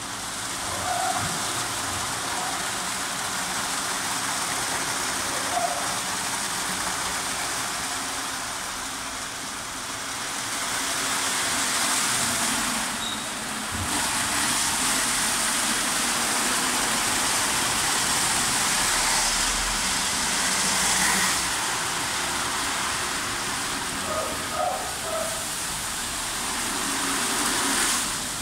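Rohé C45 E2 rollover car wash at work: rotating bristle brushes scrubbing a car under water spray, a steady loud hiss and swish of water and bristles, dipping briefly about 13 seconds in.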